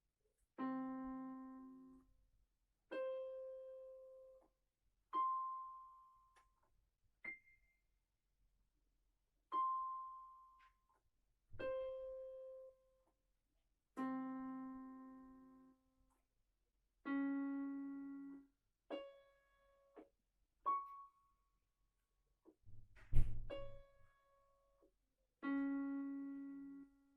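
Piano played slowly with both hands: about a dozen separate notes or chords, each struck and left to ring and fade, roughly every two seconds. A single loud knock sounds shortly before the last few notes.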